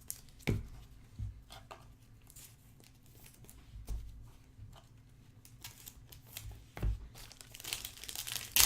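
Plastic card wrapping crinkling and tearing as trading cards are handled, with a few soft knocks in between. The crinkling grows dense and loudest near the end.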